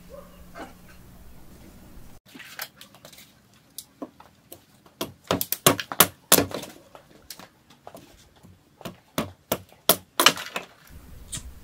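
A machete chopping and splitting sticks of wood, a run of sharp cracks and knocks starting about two seconds in, with the loudest strikes around the middle and again near the end.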